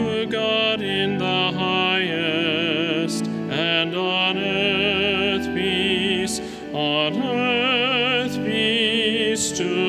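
A solo voice sings long, held notes with strong vibrato in a classical style over sustained instrumental accompaniment, with a short pause between phrases about two-thirds of the way through.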